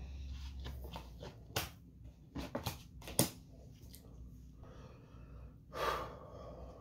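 A few sharp clicks and taps from a man handling playing cards at a table, then a short breathy rush about six seconds in, over a low steady hum.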